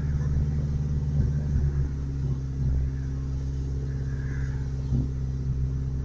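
Pickup truck's engine idling on its own with no throttle, a steady low rumble with a few brief louder pulses. Its exhaust system has fallen off, so the engine sound comes out unmuffled.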